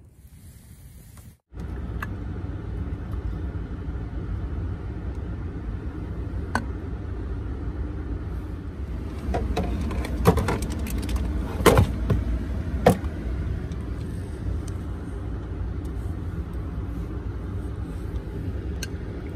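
Steady low rumble inside a vehicle's cab with the engine idling, starting abruptly about a second and a half in. A cluster of sharp clicks and knocks comes a little past the middle.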